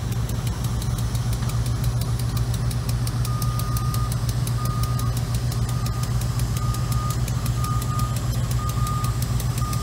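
GE B36-7 diesel locomotive running with a steady low drone as it moves a loaded side dump car past. From about three seconds in, a grade-crossing bell dings roughly once a second.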